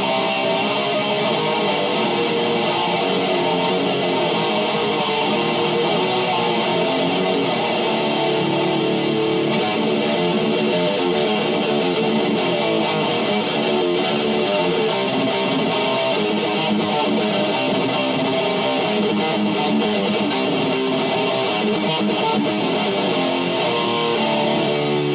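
Electric guitar played with distortion, a continuous run of metal riffs at a steady level.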